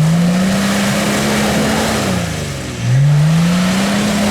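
Off-road 4x4's engine revved hard twice, each time climbing in pitch, holding, then falling back, as its wheels dig in mud and water, over a steady hiss.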